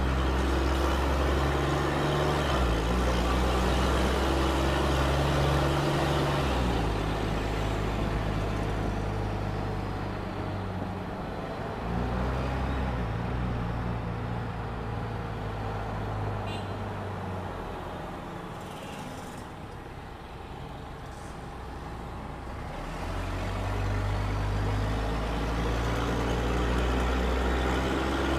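Mercedes-Benz O-500M city bus engine, heard from inside the bus, pulling under load with a deep, raspy note from a holed exhaust. The note shifts about six seconds in and again about twelve seconds in, eases off to its quietest around twenty seconds in, then pulls hard again from about twenty-three seconds.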